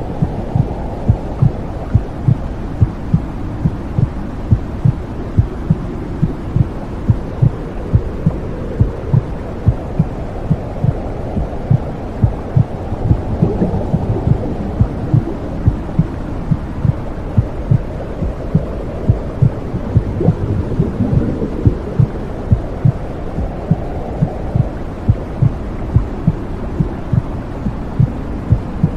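Womb sound: a steady, regular heartbeat of low thuds over a continuous low, muffled whooshing noise, like hearing a mother's heart from inside the womb. The whooshing swells slightly at times.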